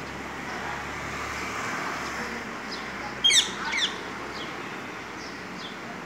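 Rose-ringed parakeet giving two loud, short, shrill calls in quick succession about three seconds in, with fainter short high chirps scattered before and after.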